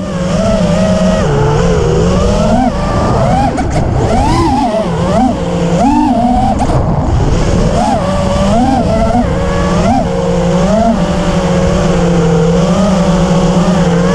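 FPV racing quadcopter's brushless motors (F60 V2, 2450 kV) and tri-blade props whining, the pitch rising and falling again and again with throttle, then holding steadier in the last few seconds.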